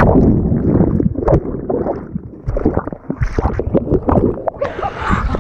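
Whitewater river heard from an action camera dunked under the surface: a muffled rush of water with irregular gurgles and knocks, cut off abruptly from its hiss at the plunge. Near the end the sound partly opens up again as the camera comes back out.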